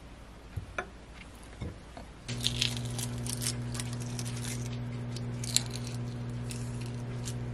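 A microwave oven humming steadily, starting about two seconds in, while the shell of a boiled egg is cracked and peeled off with crisp crackling and snapping.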